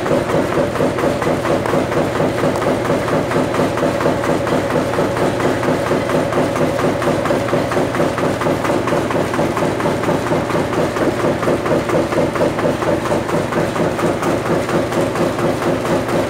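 Sawdust briquetting machine running, with a steady motor hum and a regular rapid pounding of about three to four beats a second as it compresses sawdust and pushes out briquettes.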